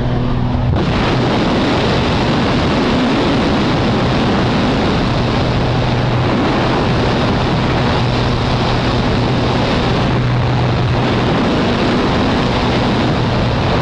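Loud rush of wind in a small plane's open doorway in flight, over the steady drone of the aircraft's engine; the wind rush comes in abruptly about a second in.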